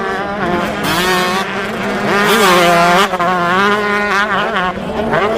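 Motocross bike engine revving hard, its pitch wavering up and down with the throttle, with a brief rise about two seconds in.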